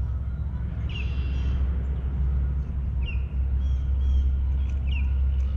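A bird calling repeatedly, every second or two, each call a few short high notes and a short sliding note, over a steady low rumble that is the loudest sound.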